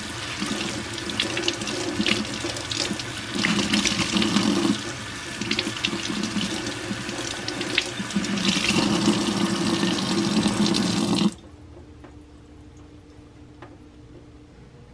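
Kitchen tap running onto a sponge being squeezed and rinsed in a stainless steel sink, the splashing swelling and easing as the sponge is worked. It cuts off suddenly about eleven seconds in, leaving a faint low steady hum.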